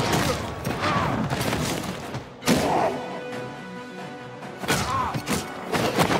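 Superhero film fight soundtrack: score music under about half a dozen heavy punch and crash sound effects, the loudest about two and a half seconds in.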